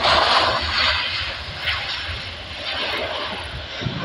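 Jet engines of a Boeing 737 airliner rolling out on the runway just after landing: a loud, steady rush that is strongest at the start and gradually fades as the aircraft slows and moves away.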